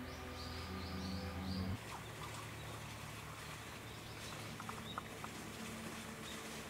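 Small birds chirping outdoors: four quick high chirps in the first second and a half, then scattered faint chirps and small ticks. A low steady hum underneath cuts off abruptly about two seconds in.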